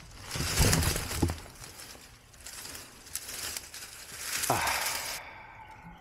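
Dry leaves and twigs rustling and crunching as gloved hands pull away undergrowth, then a brief falling swoosh about four and a half seconds in.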